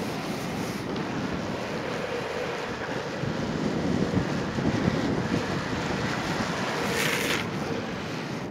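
Wind rushing over the microphone at downhill longboarding speed, with the rumble of longboard wheels rolling on asphalt. A short, brighter hiss comes about seven seconds in.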